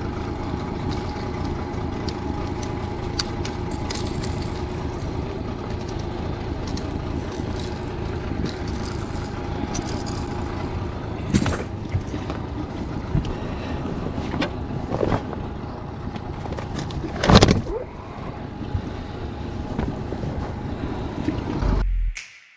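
Honda outboard motor running steadily at low trolling speed, with a few sharp knocks of gear being handled on the aluminium boat, the loudest about three-quarters through; the sound fades out near the end.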